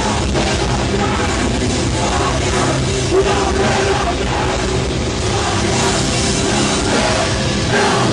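A death metal band playing live at full volume: heavy distorted guitars and drums, dense and unbroken.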